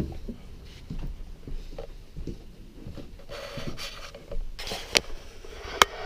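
Footsteps and handling noise from a handheld camera being carried through a trailer's interior: faint, irregular low knocks, with two sharp clicks near the end.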